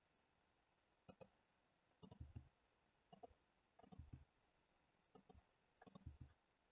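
Faint clicks of a computer mouse's buttons, in small pairs and clusters about once a second, over near silence.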